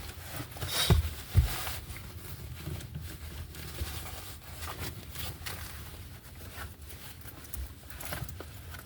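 Clothing rustling and handling noises as a jacket is taken off in a car seat, with two low knocks about a second in and scattered small clicks, over the car's steady low hum with the air conditioning running.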